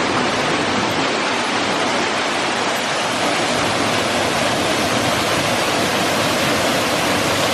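Waterfall rushing close by: a steady, unbroken sound of falling water.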